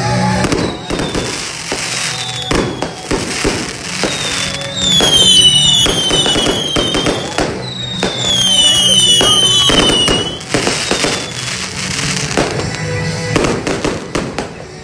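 Aerial fireworks going off in rapid bangs and crackles, with clusters of several high whistling fireworks at once about five seconds and nine seconds in. Music plays underneath.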